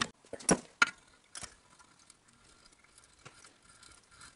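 Camera and its mount being handled and repositioned: a few sharp knocks and clicks in the first second and a half, then faint scattered ticks and rubbing.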